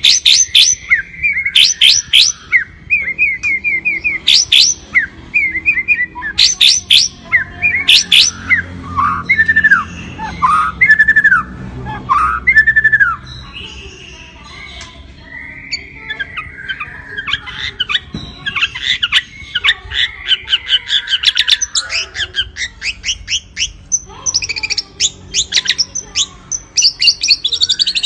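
White-rumped shama (murai batu) singing a long, varied song of sharp high chirps, downslurred whistles and fast runs of repeated notes, its full repertoire of learned phrases (isian). The song eases off briefly about halfway through, then resumes with a rapid series of notes.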